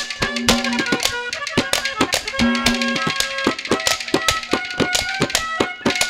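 Instrumental interlude of Haryanvi ragni folk music: a hand drum playing a fast, dense rhythm, with a melody instrument holding steady notes over it.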